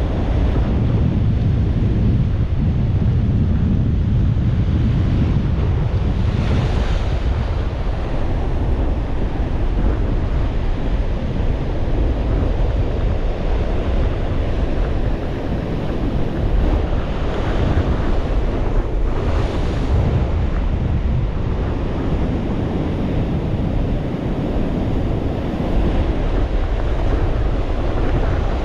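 Rough surf breaking and washing on a beach, with strong wind rumbling on the microphone; a few louder wave washes hiss up about a quarter of the way in and again past the middle.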